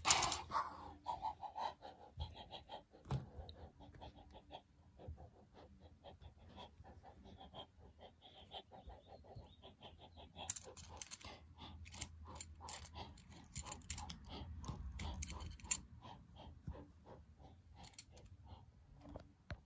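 Faint handling noise of plastic toy animal figures being picked up and moved over carpet: a sharp knock at the start, then many small clicks and rustles.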